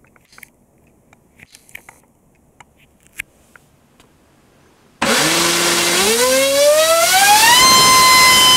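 Brushless inrunner motor (GoolRC 4082, 1900 kV) driving an APC 7x6 propeller, starting suddenly about five seconds in as a loud whine with rushing prop wash. It rises in pitch in steps as the throttle is opened, then holds a steady high pitch at full thrust for the last second or so. A few faint clicks come before it starts.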